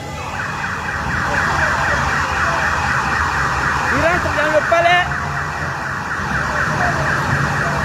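Sirens of a motorcade's police escort sounding together, a fast repeating yelp of overlapping pitch sweeps, with a voice heard briefly about four seconds in.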